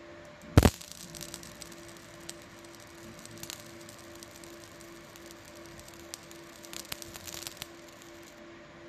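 A sharp double click about half a second in, then scattered faint crackling ticks while a 20 W fiber laser marks a clear plastic dental aligner. A steady hum runs underneath.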